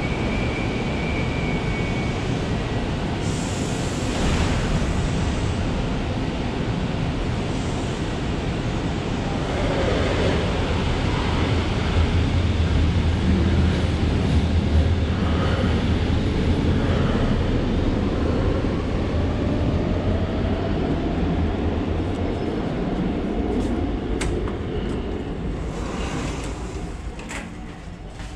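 Brussels Metro train pulling out of an underground station. Its rumble and motor whine build to a peak about halfway, then fade away as it runs off down the line.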